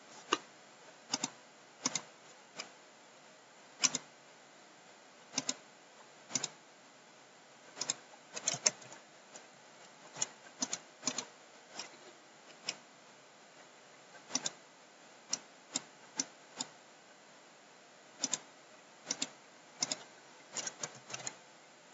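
Computer mouse clicking: sharp single clicks and a few quick pairs at irregular intervals, roughly once a second, over faint steady hiss.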